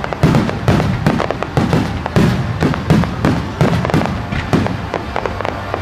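Starmine fireworks display: a rapid barrage of aerial shells bursting, about three booms a second, each with a low rumble and some crackle after it.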